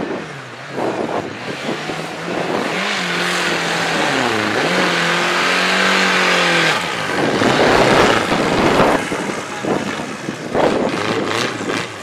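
Off-road buggy's engine revving hard under load through a mud pit, its pitch dipping briefly and climbing again, then a louder, rougher stretch as the tyres churn through the mud.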